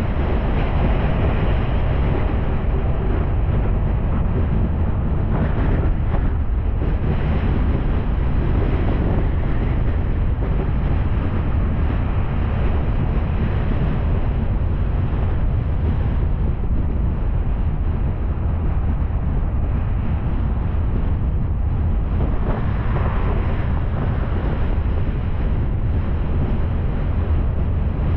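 Steady road and wind noise of a car driving, with a low rumble and wind buffeting the microphone.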